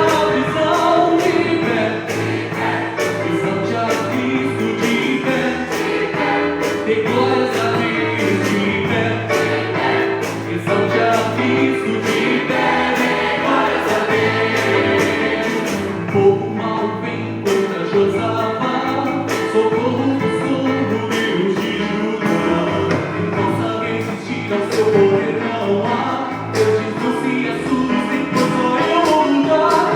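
Church choir singing a gospel-style cantata song in Portuguese with keyboard accompaniment and a steady beat.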